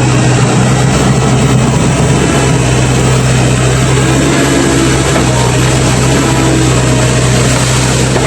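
Komatsu PC135 hydraulic excavator's diesel engine running at a steady speed, a loud constant hum.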